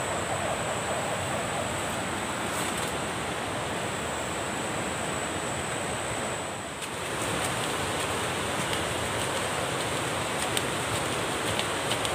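River water running, a steady wash of noise, with a thin steady high whine above it. The sound dips briefly about seven seconds in.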